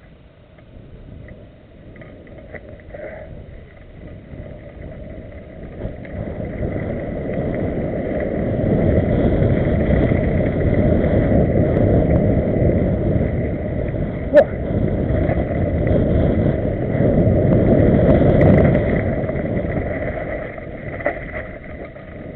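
Wind buffeting the camera microphone and the rumble of a mountain bike over a rough dirt trail, building as the bike picks up speed downhill and easing near the end. There is a single sharp knock about fourteen seconds in.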